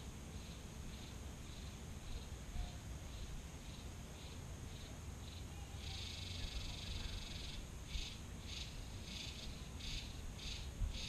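An insect calling in short high chirps, about two a second. About six seconds in it breaks into a continuous buzz for a second and a half, then goes back to chirping, over a low steady rumble.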